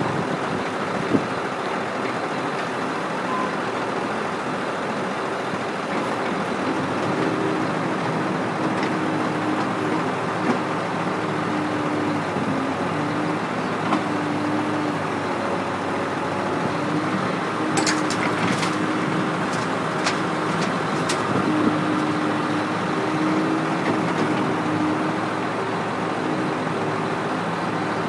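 Badger 1085D rubber-tire excavator's diesel engine running steadily under load as the bucket digs soil. From about seven seconds in, a wavering hum joins it. About two-thirds of the way through comes a short run of sharp clicks.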